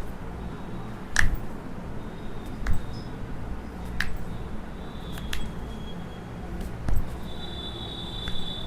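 Five sharp clicks or taps, evenly spaced about a second and a half apart, during hands-on chiropractic treatment, over a faint steady high whine.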